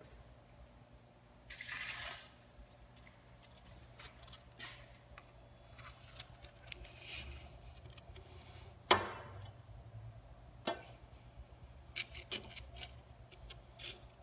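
Block of polystyrene foam being pushed through a hot wire foam cutter across its table: scattered soft rustles and light clicks, a longer rustle just under two seconds in and one sharp click about nine seconds in, over a faint steady hum.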